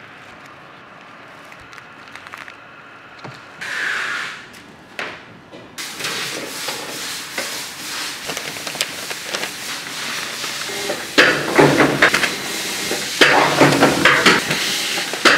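Factory roll-coating machine running: quiet room noise at first, then from about six seconds a steady noisy whirr full of fast rattling clatter, with the loudest bursts of clatter near the end.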